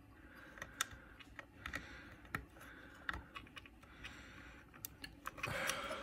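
Faint scattered small plastic clicks and rubbing as a wire connector is pushed and worked into its socket on a Shapeoko 3 CNC controller board, with a louder rustle near the end. The connector is loose in its header and needs hard pushing to seat.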